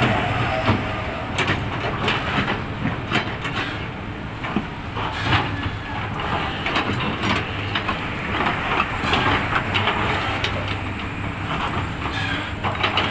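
Excavator's diesel engine running steadily at work, with repeated clanks, knocks and rattles of the bucket and soil scattered through.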